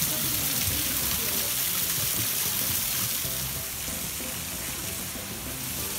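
Steady hiss of a small waterfall cascading down between rocks, with faint music underneath.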